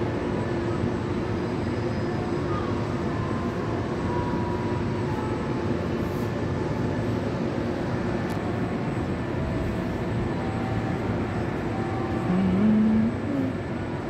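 Steady rumble of downtown city traffic, with faint, distant church bells ringing beneath it. Near the end a short, louder tone steps up in pitch.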